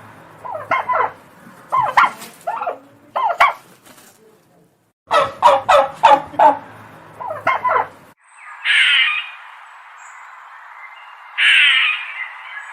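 Turkey gobbling: several short rattling gobbles, then a full rapid gobble about five seconds in. After about eight seconds the sound cuts to a crow cawing twice over a steady hiss.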